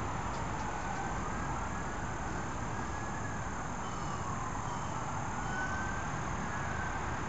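Siren wailing, faint against steady outdoor background noise, its pitch slowly rising and falling over and over.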